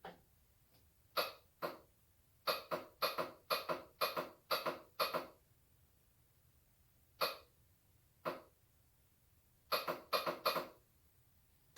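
Polaris Magnum 425 ATV's electric starter clicking without turning the engine over. There are short sharp clicks, singly and in quick runs of several, and no cranking between them: the starter is stuck, which the owner blames on water in the starter.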